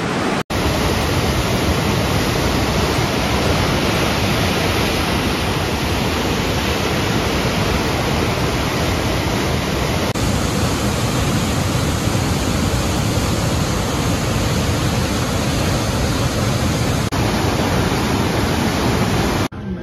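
Niagara Falls' falling water, a loud, steady rushing roar heard close by, broken only by short cuts between clips about half a second in and near the end.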